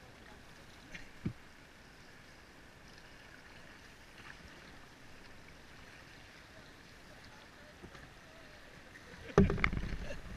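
Steady rush of river water around a paddled boat's hull, with a brief knock about a second in. Near the end comes a sudden, much louder low thump and rumble.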